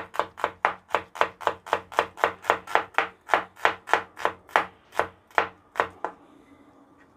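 Cleaver chopping red onion on a wooden cutting board: a steady run of sharp knocks, about five a second, that stops about six seconds in.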